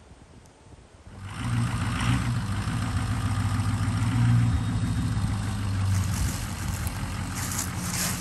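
Pickup truck engine running at a steady idle, coming in about a second in.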